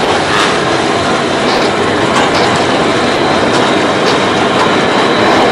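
Passenger ferry under way, heard from the stern: a loud, steady rush of engine rumble and churning wake water.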